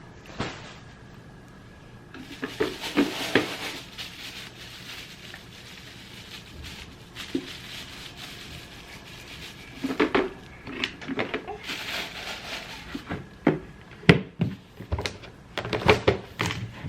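Irregular household clatter: scattered knocks and bumps with short rattling and rustling, in clusters about 3 seconds in, around 10 to 12 seconds, and near the end.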